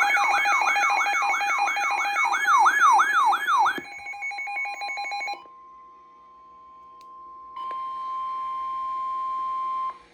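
Emergency alert tones. A repeating falling-pitch electronic whoop, about three a second over steady tones, stops about four seconds in. Then, from about five and a half seconds, comes a single steady high-pitched tone, typical of the 1050 Hz National Weather Service warning alarm tone, which gets louder about two seconds later.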